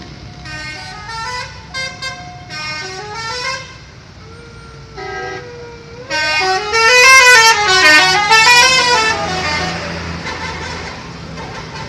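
Bus 'telolet' musical horn playing a tune: short stepped notes in quick runs, a held note, then a loud stretch of notes swooping up and down in pitch, with more short notes near the end. A low steady rumble runs underneath.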